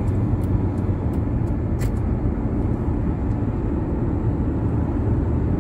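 Steady low rumble of a car's engine and tyres at highway speed, heard from inside the cabin, with a few faint light ticks.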